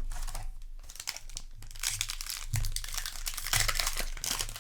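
Crinkling and tearing of a foil booster-pack wrapper being handled and ripped open, in irregular rustling bursts that are loudest about two seconds and three and a half seconds in.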